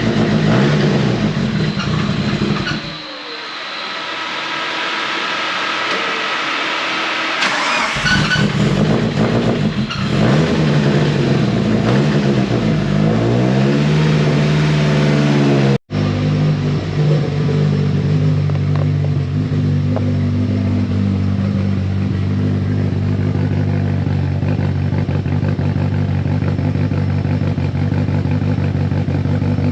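Car engine running, with its revs rising and falling several times, then a steady drone after a hard cut about halfway through.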